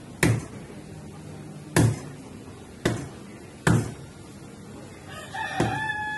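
Cleaver chopping raw chicken on a wooden log chopping block: five sharp, irregularly spaced chops, the loudest sounds. About five seconds in, a rooster starts a long, steady crow.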